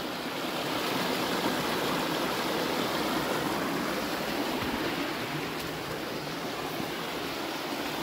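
A forest stream running steadily over rocks, its water spilling in a small cascade into a pool.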